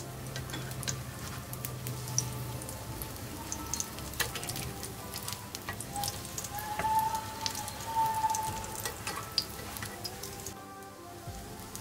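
Corn and vegetable fritters sizzling in shallow oil in a nonstick frying pan, with oil crackling and spatulas clicking against the pan as the fritters are turned over.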